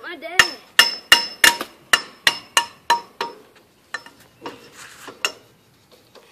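A hand tool hammering with ringing metallic blows, about ten quick strikes at roughly three a second, then a few fainter knocks. This is work at the mired tractor's rear wheel.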